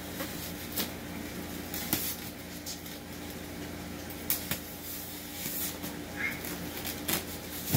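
Packing tape being peeled and ripped off a styrofoam shipping cooler in several short rips and clicks, over a steady low hum in the background.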